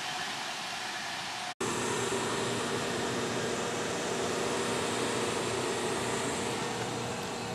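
A steady, noisy rush, then after an abrupt cut a steady hum with several held tones. The hum comes from a train of stainless-steel private passenger cars close alongside the platform.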